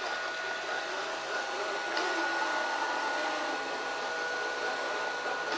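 Shengqi SQ-A325 robot vacuum cleaner running in auto mode: a steady motor whine with one held tone over a whirring hiss, and a light click about two seconds in.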